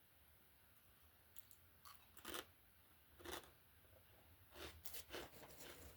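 Potato chips crunching as they are bitten and chewed: a handful of short, crisp crunches at uneven intervals, the loudest two about two and three seconds in.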